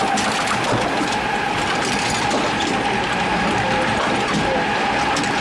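Log flume ride machinery running, heard from aboard the log boat: a steady mechanical whine over a continuous rattle and clatter.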